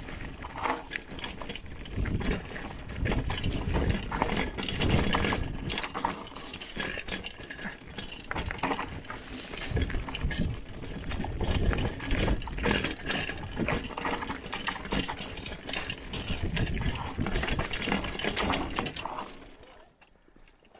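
Hardtail mountain bike riding fast down a rough dirt trail: tyre noise with a dense, irregular rattle of knocks from the bike over the bumps. It stops near the end.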